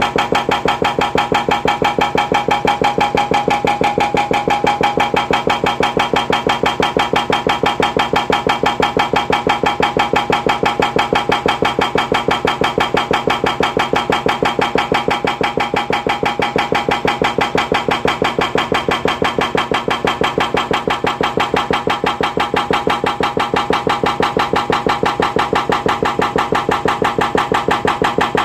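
Hydraulic breaker hammering concrete: rapid, even blows, several a second, without a pause, over the running engine.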